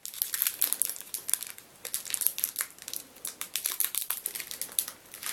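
Foil Pokémon booster pack wrapper crinkling, with many irregular sharp crackles, as it is handled and pulled at to get it open.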